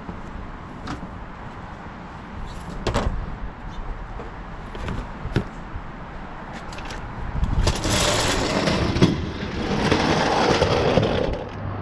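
Scattered light clicks and knocks of parts being handled, then about four seconds of loud rustling and scraping in the second half.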